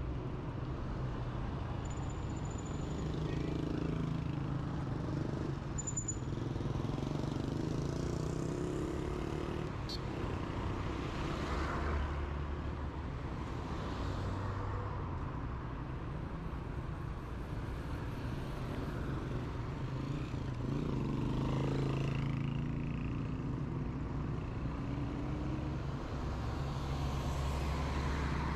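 Road traffic passing on a city street: cars and motorbikes going by one after another, their engine notes swelling and fading over a steady low rumble.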